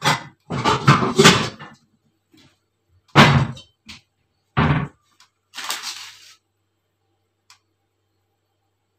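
Kitchen pots and cookware being handled: a flurry of clattering knocks, then two heavy thuds as a stainless steel pot is taken out and set down, and a short hiss about six seconds in before it goes quiet.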